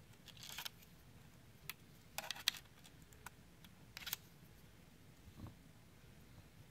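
Faint, scattered clicks and scrapes of a small precision screwdriver and fingers on a laptop's wireless card and its screw, with a quick cluster of sharper ticks about two seconds in and another click about four seconds in.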